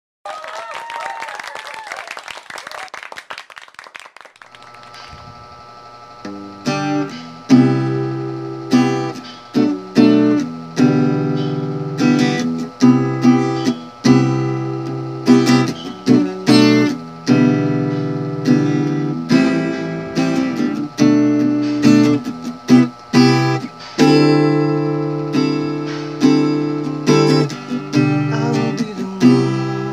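Acoustic guitar intro: a few soft notes, then strummed chords in a steady rhythm from about six seconds in, with no singing yet. A separate short wavering sound fills the first four seconds before the guitar comes in.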